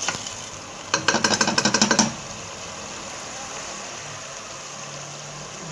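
A spoon stirring fast in a pot of blended pepper and onions frying in oil: a quick rattling clatter about a second in that lasts about a second, over a steady low sizzle.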